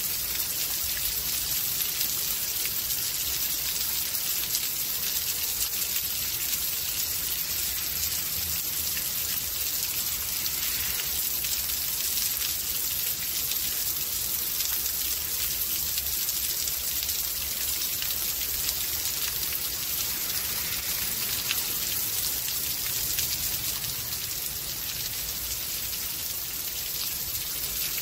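Steady rain from a rainstorm, a constant hiss with many fine drop ticks.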